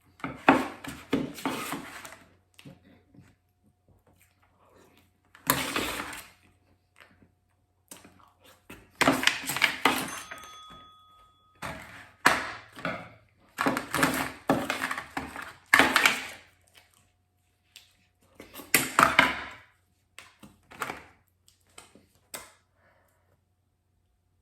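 Spoon scraping and knocking against a pie dish while a soft chocolate pie is eaten fast, in repeated bursts of one to two seconds, with quieter eating sounds in between.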